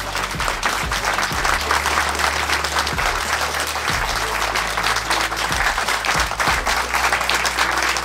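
Audience applauding steadily, many hands clapping at once, with background music low underneath.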